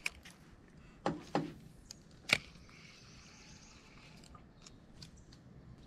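Quiet handling noises from a fishing rod and reel, a few soft clicks and one sharp click a little over two seconds in.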